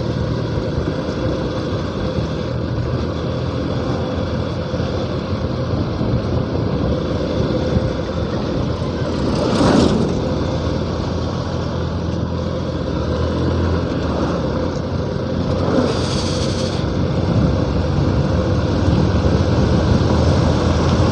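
Motorcycle riding along at steady speed: its engine running under wind and road noise. About halfway there is a louder rush of noise as it passes close by a bus, and a short high hiss a few seconds later.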